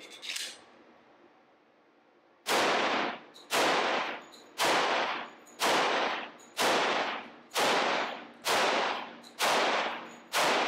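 A few small clicks as the FN 510 Tactical 10mm pistol is loaded, then nine shots fired at a steady pace of about one per second, starting about two and a half seconds in. Each shot has a long echo tail from an indoor range.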